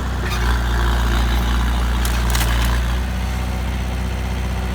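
Dump truck engine running steadily at a low, even pitch, with a couple of brief clicks.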